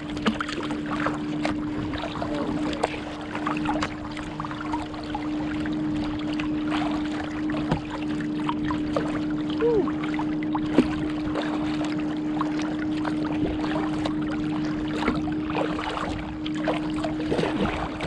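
Kayak paddles dipping and water splashing and lapping along the hull of a moving kayak, with a steady low hum underneath.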